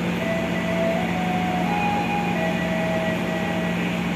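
Steady low drone of a diesel passenger train idling at a station platform, with a few faint held tones stepping up and down in pitch over it.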